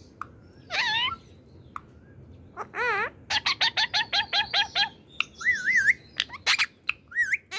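Indian ringneck parakeet calling: two harsh, wavering calls, then about three seconds in a rapid run of short chirps, roughly eight a second, followed by warbling whistles and sharp chirps.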